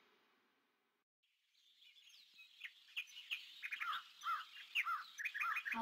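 Songbirds chirping, fading in after a second or so of silence: many quick chirps and short whistled notes that grow louder and denser.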